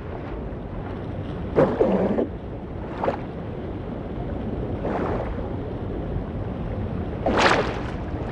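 Underwater ambience: a steady low rumble broken by several short bubbling swishes, the loudest about one and a half seconds in and near the end.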